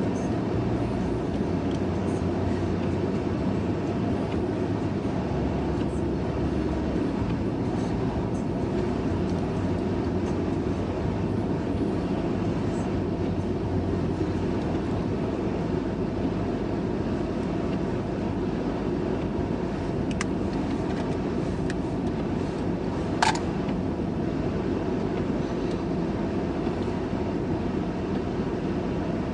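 Steady low rumble of a moving vehicle, with one short sharp click about 23 seconds in.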